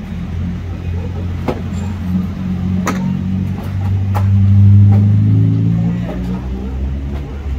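Engine of a vehicle passing on the road, swelling to its loudest about two-thirds of the way through and then fading, with a few sharp clacks of brick rubble being handled.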